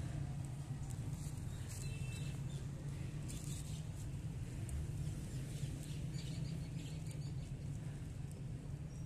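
Street ambience: a steady low hum of city traffic, with faint short bird chirps now and then.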